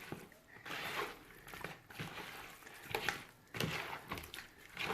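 Quail being stirred through a wet lemon-juice and spice marinade: soft, irregular squelching with a few light clicks.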